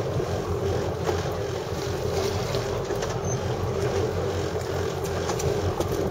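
Steady drone of a sport-fishing boat's engines, with wind noise over it.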